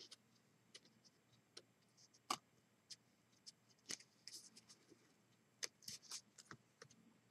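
Faint, scattered clicks of paper snips cutting cardstock and of the card being handled, with a quick run of snips a little before the end.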